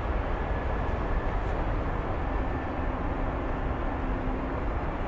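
Airbus A320-232's two IAE V2500 jet engines at takeoff power, heard from a distance as a steady, even rumble during the takeoff roll.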